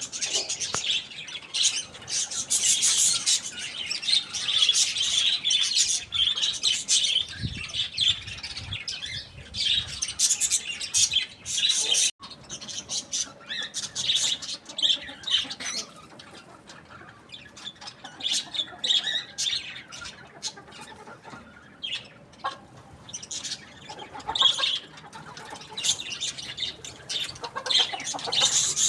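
Small birds chirping and chattering in a rapid, high-pitched stream with occasional squawks. The calls are dense for the first twelve seconds, then break off abruptly and go on sparser.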